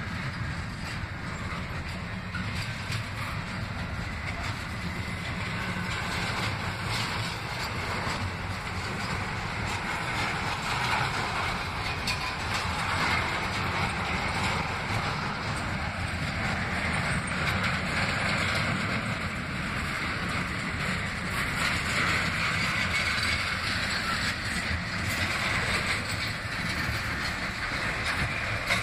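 Double-stack intermodal container train's well cars rolling past close by: steady rumble and clatter of steel wheels on the rails, getting a little louder about a third of the way in.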